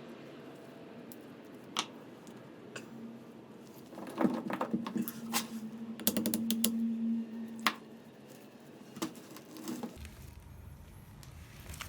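Metal parts of an inner CV joint clicking and tapping against each other as they are handled and fitted together. The clicks are scattered, come thickest about halfway through, and a brief low hum runs under them.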